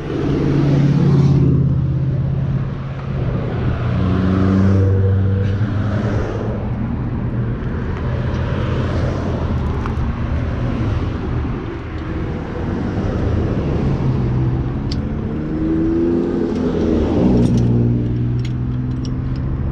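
A motor vehicle engine running, its speed rising and falling several times.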